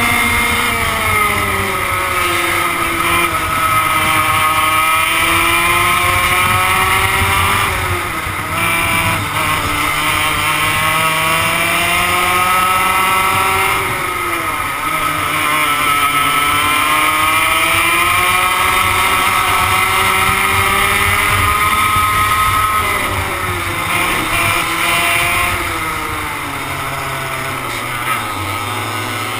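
A 100cc two-stroke kart engine at racing speed, heard onboard. Its pitch drops each time the driver lifts for a corner and climbs again as he accelerates out, with a long low stretch near the end through a tight bend.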